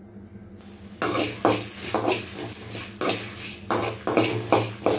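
Metal spatula scraping and stirring coriander seeds and dried red chillies around an aluminium kadai as they roast, in repeated strokes of about two a second that start about a second in.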